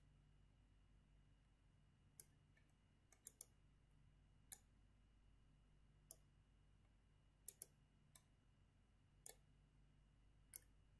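Computer mouse button clicks, about ten sparse single clicks and quick pairs, over a faint steady electrical hum.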